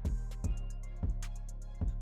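Background music with a deep, sustained bass, a kick drum beat and quick hi-hat ticks.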